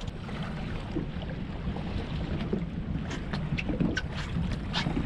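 Wind buffeting the microphone over choppy water lapping against a small boat's hull, with scattered short knocks and splashes, more of them in the second half.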